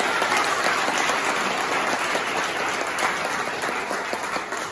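Audience applauding, a dense patter of clapping that slowly dies away near the end.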